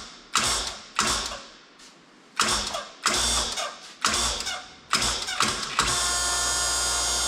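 CAT hydraulic hose press being worked: a run of sharp mechanical clacks, about one every two-thirds of a second, each ringing out briefly. A steady hum with a held whine follows near the end.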